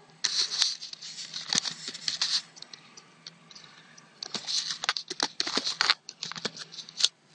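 Computer keyboard typing: runs of quick key clicks, a pause in the middle, then more keystrokes.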